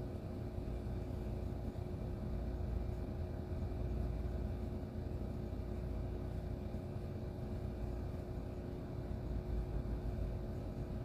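Steady low rumble with a constant hum: background room noise, unchanging throughout, with no distinct handling or tool sounds.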